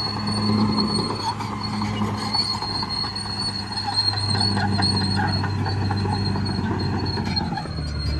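Caterpillar D6R crawler bulldozer working: its diesel engine runs steadily under the clanking and high squeal of the steel tracks. The engine note drops to a lower pitch near the end.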